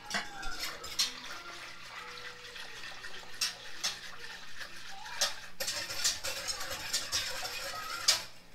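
Wire whisk stirring milk in a stainless steel Instant Pot insert: a steady swishing of liquid with repeated light clinks of the wires against the pot's side. The milk is being stirred as it heats so that no film forms on top.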